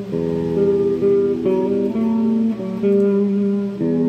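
Electric guitar played through a Boss Katana 100 MkII amplifier: chords strummed and left to ring, changing about every second.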